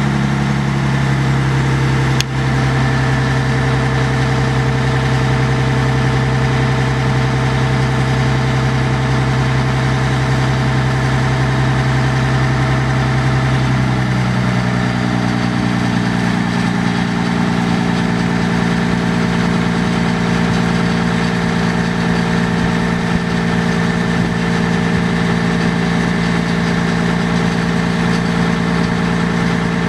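2003 John Deere 400D articulated haul truck's Mercedes-Benz six-cylinder turbo diesel running steadily at idle, its speed stepping up a little about halfway through and holding there while the raised dump body starts to come down. A single sharp click a couple of seconds in.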